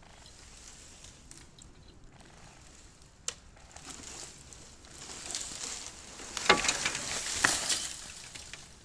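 Small birch tree falling under a winch's pull. A single sharp crack of wood about three seconds in, then a rising rush of swishing, breaking branches. Loud cracks come as the crown hits the snowy ground near the end, then it dies away.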